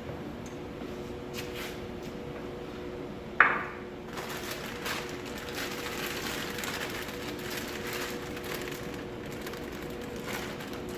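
Chair parts being handled: one sharp knock about three seconds in, then ongoing rustling and clattering as pieces are moved about, over a steady faint hum.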